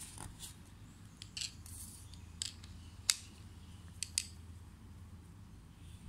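Small metal tool-and-part clicks and light scrapes while a LOOK Keo Blade carbon pedal and a hex key are handled during pedal servicing, about eight irregular ticks with the sharpest about three seconds in.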